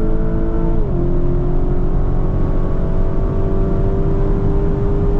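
Lamborghini Urus SE's 4.0-litre twin-turbo V8 pulling hard under full acceleration. About a second in, the revs drop sharply with an upshift, then climb steadily again in the next gear.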